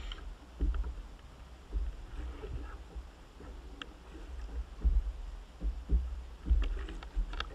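A kayak's hull slapping through small waves, irregular low thumps over a steady low rumble of wind on the microphone.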